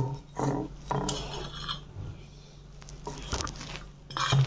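A steel bowl being handled: a few separate clinks and knocks of metal, with light rustling between them.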